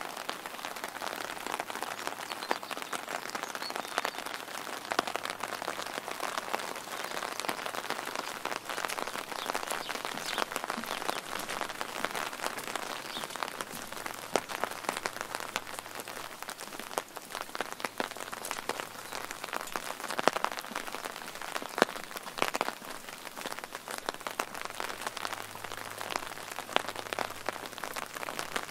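Steady rain falling, with many sharp, close drop impacts ticking through it.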